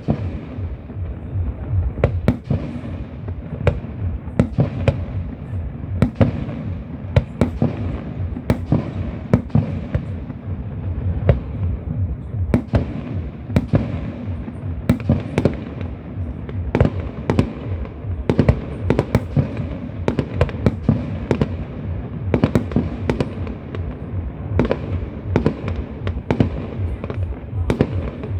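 Fireworks going off: a dense, irregular run of sharp bangs and crackles, several a second, over a continuous low rumble.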